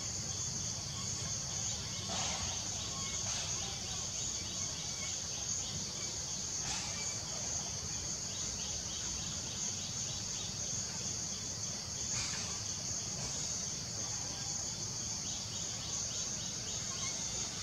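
Steady high-pitched insect chorus in forest, over a low background rumble.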